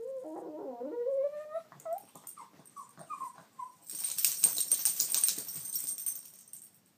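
Boston terrier vocalizing: a drawn-out whine that rises in pitch over about a second and a half. A string of short, higher whimpers follows. Then comes a stretch of harsh, hissing noise that stops shortly before the end.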